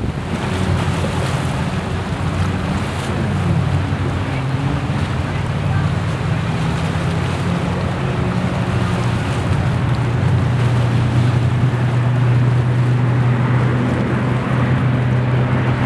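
Twin-engine propeller airplane taking off, a steady low drone that grows louder over the last few seconds. Wind buffets the microphone and lake waves lap.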